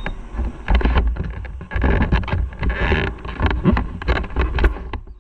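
Wind buffeting the camera's microphone in uneven gusts, a loud rumble, with scattered knocks and rustles.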